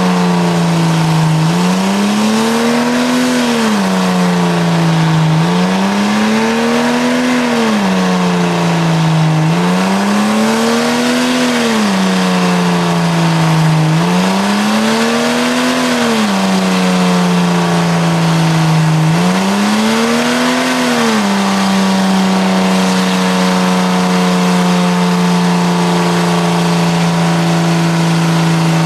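Jeep Cherokee engine at high revs during a burnout, the revs rising and falling in slow waves about every four seconds, then held steady for the last third. The rear tyres spin on the pavement with a continuous hiss.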